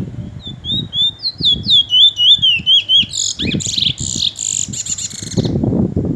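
Caged bullfinch, a black seed finch, singing: a quick run of whistled notes that swoop up and down, then a harsher, buzzy trill, over low rustling noise that gets louder near the end.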